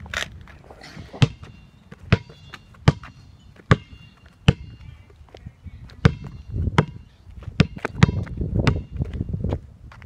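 Rubber basketball bounced on a concrete driveway, each bounce a sharp slap with a short ringing ping. The bounces come about once every 0.8 seconds, then faster and less even over a low rumble in the second half.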